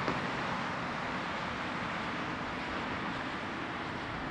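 Steady noise of road traffic passing, an even wash with no single vehicle standing out.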